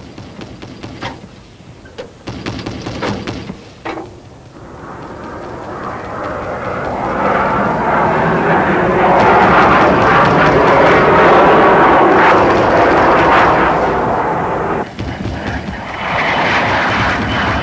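A few sharp clicks and knocks of metal handling, then a fixed-wing aircraft passing low overhead: its engine noise swells to a loud, steady rush, drops off suddenly about fifteen seconds in, and returns loud shortly after.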